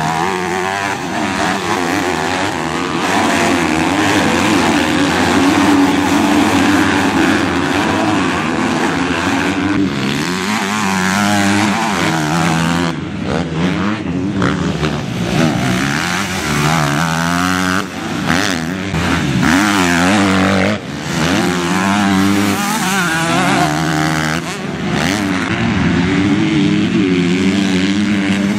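Several MX2-class motocross motorcycles racing, their engines revving up and dropping back again and again, overlapping each other, with brief lulls between throttle bursts.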